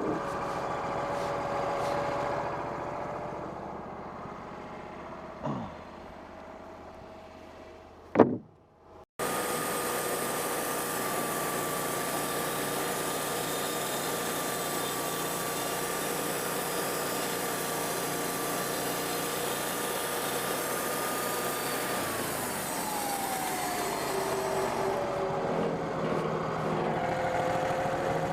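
Wood-Mizer portable band sawmill's engine running. It idles and fades at first, with two brief knocks, then runs at a steady high speed under load. Near the end its pitch falls as it winds down toward idle.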